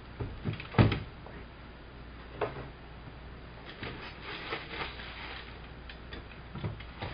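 Unpacking sounds: a few knocks of cardboard packing and the boxed robot being handled, the loudest a thud a little under a second in, then a clear plastic bag crinkling as it is pulled off the robot vacuum.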